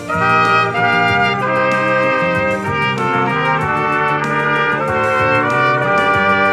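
Three trumpets playing a melody in close harmony, sustained notes moving together and changing about every half second.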